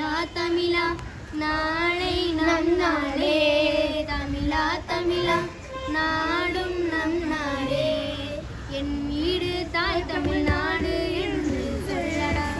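A boy singing a song solo in a high child's voice, in long held, gliding notes, pausing briefly between phrases.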